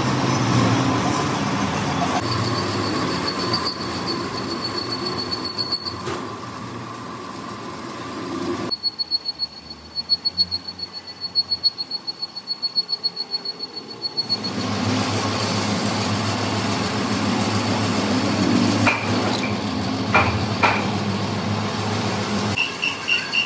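Heavy factory machinery running with a steady mechanical din. Partway through it gives way for several seconds to a quieter run of rapid, even pulses with a thin high tone, then the steady din returns.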